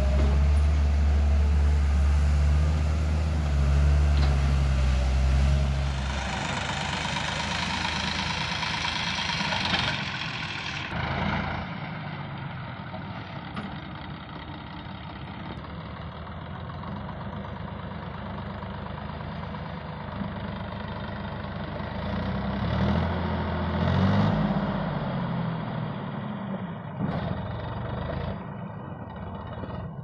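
Diesel engines of a backhoe loader and farm tractors running. A heavy, steady low drone for the first six seconds gives way to a lighter engine note, with a rise and fall in pitch a little past the middle as a tractor pulls a loaded soil trolley.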